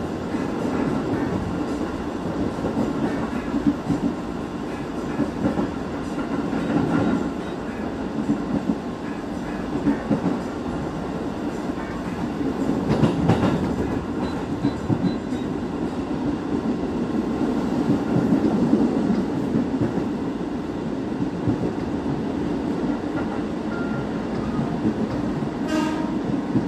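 Interior of a JR 205 series electric commuter train running at speed: the steady rumble of wheels on rails, with a few sharper clacks over rail joints about halfway through and near the end.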